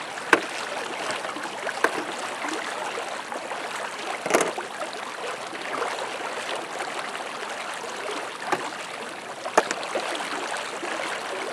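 Steady rush of a flooded river's current, with a few sharp clicks scattered through it.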